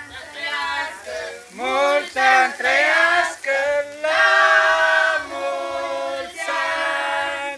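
A group of people singing a birthday song together without accompaniment, in held notes with short breaks between phrases.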